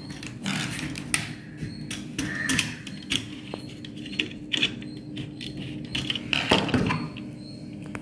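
Small clicks and taps of a screwdriver and wire being worked in the terminals of plastic modular switches, tightening terminal screws onto the phase wire, over a steady low hum.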